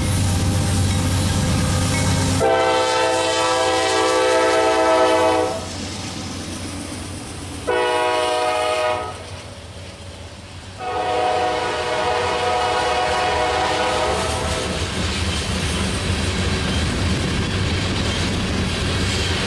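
Freight locomotive horn, on a CSX rebuilt CM44AH, blowing a long blast, a short one and a final long one as the train comes by. After the last blast come the steady rumble and clatter of the freight cars rolling past.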